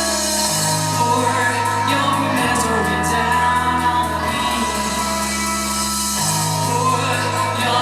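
Live rock band playing a song with sung vocals, over held bass notes that change about every two seconds.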